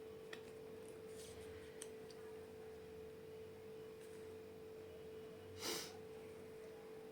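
A steady, faint tone, with one short, sharp breath from a person about five and a half seconds in and a couple of soft clicks near the start.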